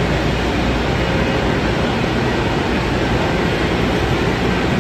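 Steady hum and rushing noise of a high-speed railway platform, with high-speed trains standing idle at it.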